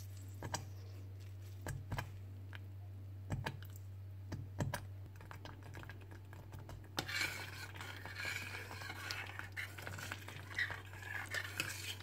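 Thick fruit sauce simmering in a stainless steel saucepan, with scattered soft pops and clicks over a steady low hum. From about seven seconds in, a metal spoon stirs and scrapes through the sauce against the pan.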